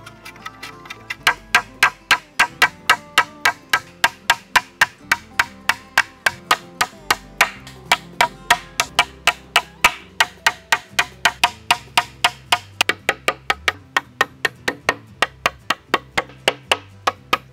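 Hammer driving nails through sawn wooden planks into round-pole crosspieces: quick, steady blows, about three or four a second, with a few short pauses. Background music plays underneath.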